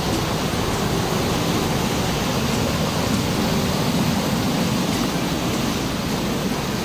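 Water rushing steadily out from under a water-powered stone flour mill through its outflow channel, a constant splashing hiss of fast white water.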